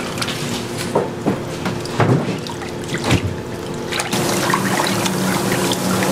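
Water running from a tap into a kitchen sink as a steady splashing flow, getting a little louder about four seconds in, with a few short knocks of handling.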